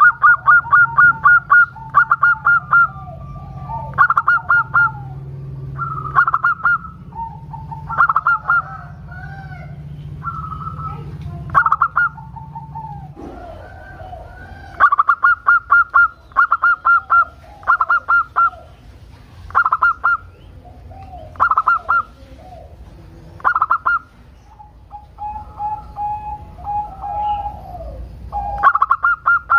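Zebra dove (perkutut) singing: phrase after phrase of quick rattling coos, with a pause about halfway and sparser phrases near the end. Softer, lower coos fall between the phrases, and a low steady hum underneath stops about halfway.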